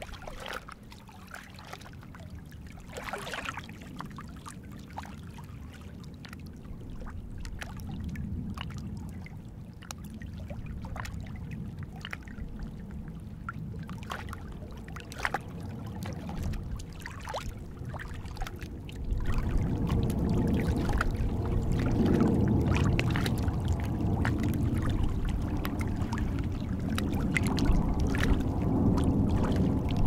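Small waves lapping and trickling among shoreline rocks, with many small splashes. About two-thirds of the way in, a low rumble with a faint steady hum swells in and stays: a jet airliner flying over.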